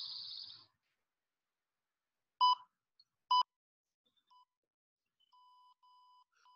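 Electronic interval timer beeping: two short, sharp beeps about a second apart, a faint third, then a few longer, quieter tones, marking the end of a 45-second exercise interval.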